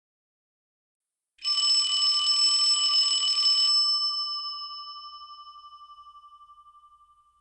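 A bell struck in a fast roll for about two seconds, then left to ring out, fading away over the next few seconds.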